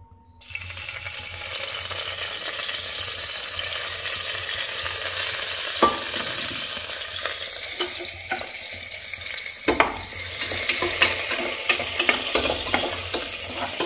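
Sliced onions sizzling and frying in hot oil in a pressure cooker, starting about half a second in. From about ten seconds in, a spoon clicks and scrapes against the pot as the onions are stirred.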